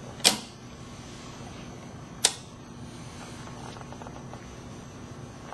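Two sharp plastic clicks about two seconds apart, made while a sleeved optical fiber is set into a fusion splicer's protection-sleeve heater, over a faint steady hum.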